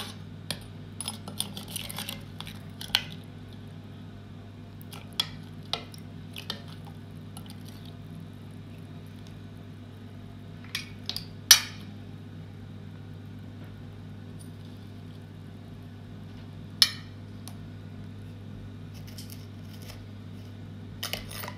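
Scattered clinks and taps of a metal spoon against a ceramic bowl and a glass baking dish as biscuits are dipped in milk and laid in the dish, over a steady low hum. The loudest clink comes about halfway through.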